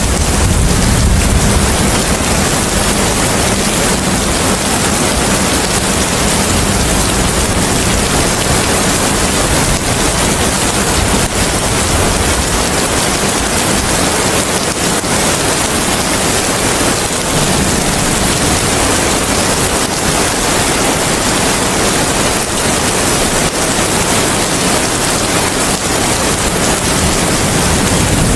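Steady heavy rain with wind: a dense, even hiss with an uneven low rumble beneath it.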